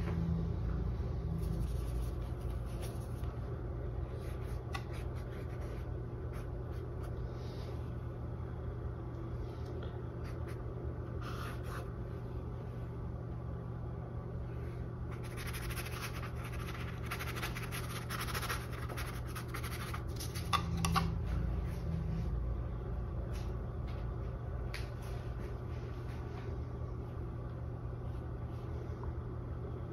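Paintbrush bristles scratching and rubbing across a stretched canvas with acrylic paint, in spells of short strokes, over a steady low hum. A light knock about twenty seconds in.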